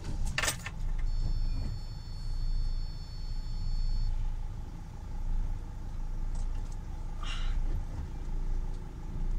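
Camping-car engine running at idle, a steady low rumble heard from inside the cab, with a sharp click about half a second in and a steady high whine for about three seconds.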